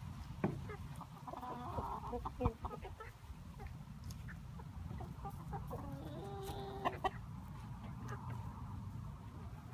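Young backyard chickens, mostly cockerels, clucking with short calls, one longer held call about two-thirds of the way through, over a low steady rumble.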